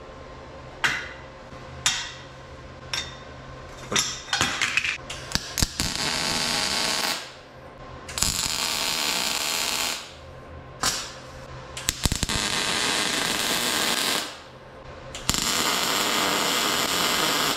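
MIG welder running on argon/CO2 shielding gas, tack-welding steel casters onto a cart frame. A few short, sharp pops come about a second apart, then the arc runs in several bursts of one to two seconds each, with short pauses between.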